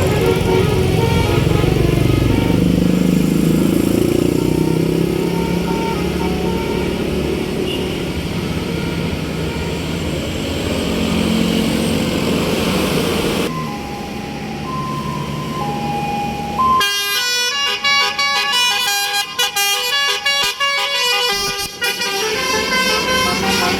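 A bus passing with its engine running and rising in pitch. Then, in the second half, a bus's telolet 'basuri' musical air horn plays a quick tune of short stepped notes.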